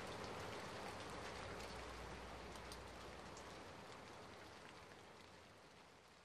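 Rain falling steadily, with scattered sharp drop ticks, fading out gradually and stopping shortly before the end.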